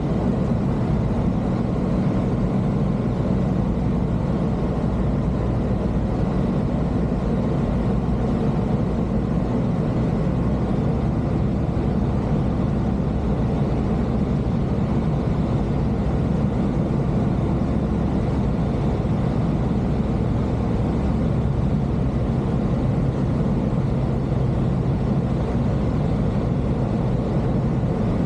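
Aeroprakt A22LS light aircraft's engine and propeller running at a steady drone.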